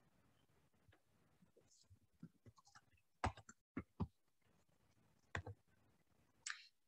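A handful of short, separate computer keyboard and mouse clicks spread over a few seconds, as text is typed and an item is clicked on screen.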